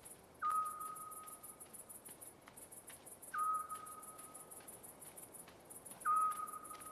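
Night field ambience: insects chirping in a fast, steady pulse, and a clear whistled note that sounds three times, about three seconds apart, each held about a second.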